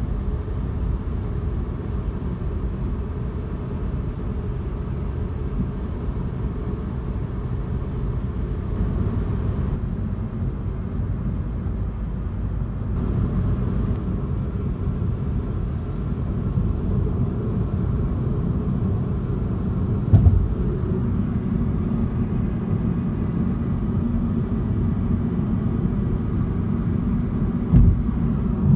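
Steady road and engine noise inside a moving car's cabin at highway speed. Two brief thumps break in, one about two-thirds of the way through and one near the end.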